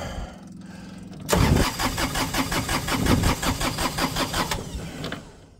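Kioti compact tractor's diesel engine cranking on the key, a fast even chugging that starts about a second in and fades out near the end, after a steady low hum.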